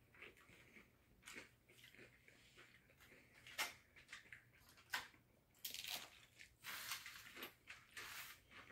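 Faint crunching of tortilla chips being chewed and picked off a foil-lined tray: scattered crisp cracks, coming thicker in the last three seconds.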